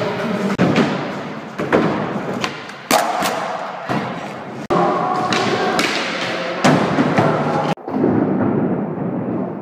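Skateboard and scooter wheels rolling on wood and concrete, with repeated sharp board thuds and clacks, and music playing in the background. The sound changes abruptly several times.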